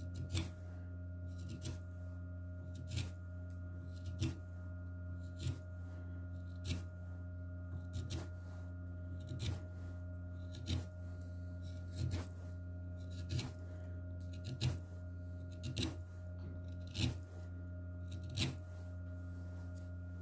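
Wood lathe running with a steady electric hum, as a hand works over the turning wooden vessel. A short scrape comes regularly, about every 1.3 seconds.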